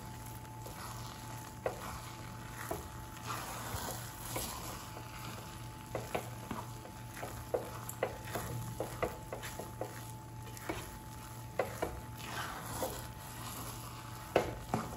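A spatula stirring and scraping a pan of vermicelli upma and grated coconut, with irregular clicks as it knocks against the pan. The water has cooked off and the dish is being stirred dry on the heat.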